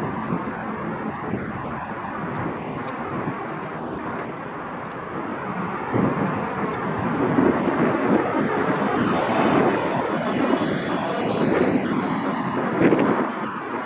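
Low, steady rumble of a Union Pacific diesel switch engine hauling a string of cars at low speed, with wind buffeting the microphone. The rumble gets louder and more uneven from about six seconds in.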